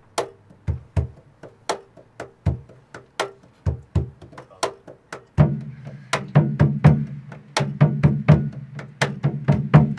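A live percussion groove on cajón and a stick-beaten skin drum: sharp hand and stick strokes in a steady, tribal-style beat. About halfway through, a low steady tone comes in under the drums and the music gets fuller.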